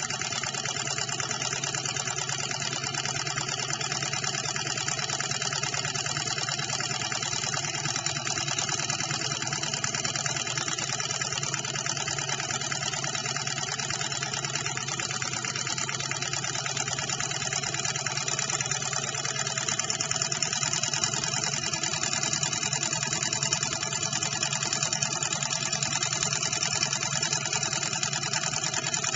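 Small model hot-air Stirling engine running steadily under the heat of a burning Esbit solid-fuel tablet: a continuous rapid mechanical clatter from its spinning flywheel and linkage, a little louder in the second half.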